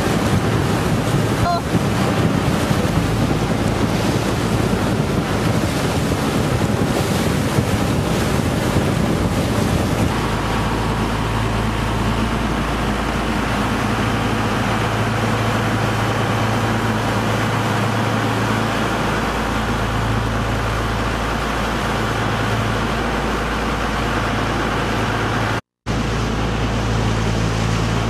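Wind buffeting the microphone and water rushing past the hull, joined about ten seconds in by the steady low drone of the fishing boat's engine running under way. The sound cuts out for a split second near the end.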